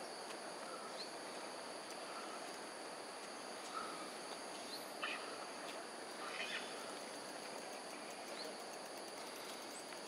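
Steady rush of water running over a shallow weir in a concrete canal, with a high, steady insect drone and a few short chirps around the middle.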